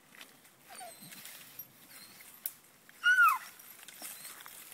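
A dog gives one loud, high yelp that falls in pitch, about three seconds in, with a fainter short whine about a second in. Faint rustling and scuffing run under it.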